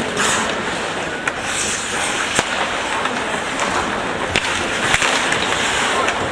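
Ice hockey play: a steady scraping hiss of skates on the ice, with sharp clacks of sticks and puck about half a dozen times.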